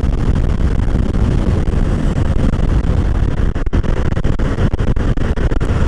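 Wind buffeting a Boya BY-M1 lavalier microphone inside a motorcycle helmet while riding: a loud, fluttering low rumble. The mic picks up strong wind noise.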